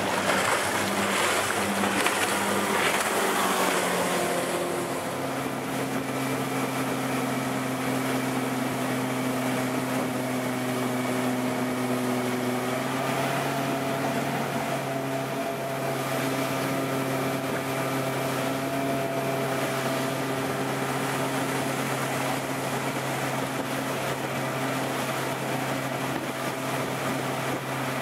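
Motorboat engine running steadily at planing speed as a steady hum that steps up slightly in pitch about halfway through. For the first few seconds a loud rush of wind and spray covers it.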